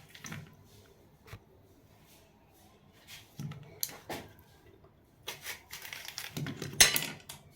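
A knife cutting an apple into small pieces: scattered short cuts and taps, quiet for a moment after the first second, then a closer run of strokes in the second half, the sharpest near the end.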